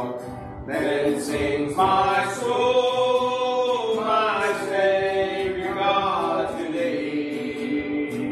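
Hymn singing in church: voices hold long notes, with a short break between phrases about half a second in.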